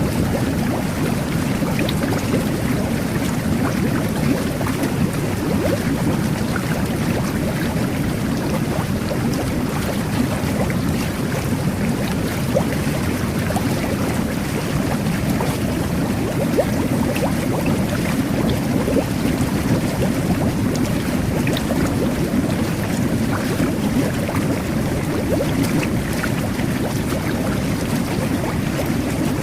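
Jet bath (whirlpool bathtub) running: water jets and air bubbles churning the bathwater in a steady, unbroken low rush.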